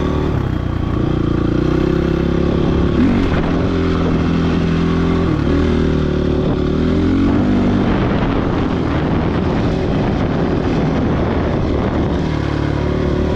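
Dirt bike engine running while being ridden, the revs rising and dropping a few times as the rider works the throttle. The engine sound turns rougher and noisier in the second half.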